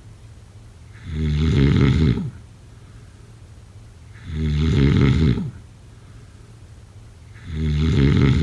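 A person snoring: three loud, rattling snores about every three seconds, each lasting just over a second, with quiet stretches between.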